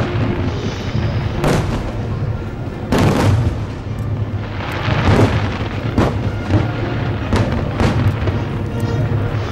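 Fireworks shells bursting in a series of booms, about one a second, over music with sustained tones.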